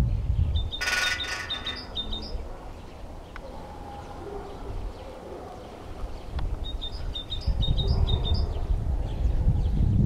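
A great spotted woodpecker drumming on a power-line pole: one brief, ringing drum roll about a second in. Another bird gives quick runs of high chirps twice, near the start and again about seven seconds in.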